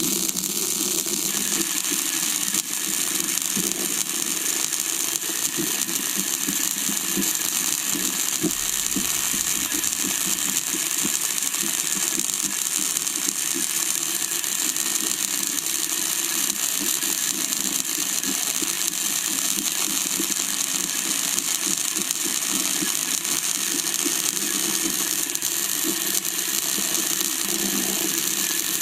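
Metal lathe running steadily with a rattling, gear-driven mechanical noise, without a break.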